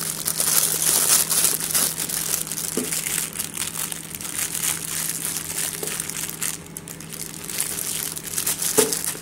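Plastic piping bag crinkling and rustling as it is handled and filled with thick coffee topping batter off a silicone spatula, a dense irregular crackle throughout.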